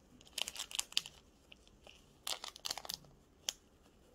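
A fabric drawstring pouch rustling as it is handled and pulled open, in two spells of short scratchy rustles. A single sharp click comes near the end.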